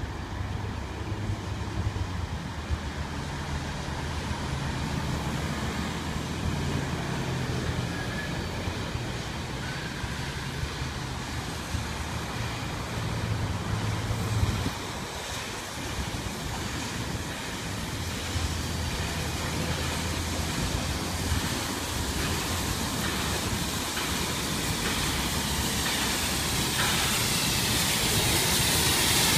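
Low, steady rumble and hum of trains around a station, growing louder over the last few seconds as NSW C36-class steam locomotive 3642 approaches, with a rising hiss of steam.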